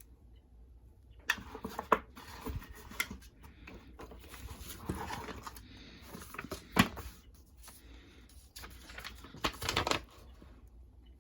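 Rustling, clicks and knocks of a key programmer kit's packaging and plastic parts being handled and unpacked, in irregular bursts with a sharp knock about two-thirds of the way through.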